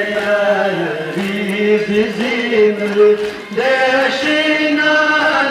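Men's voices chanting a noha, a Shia mourning lament, in long held melodic lines.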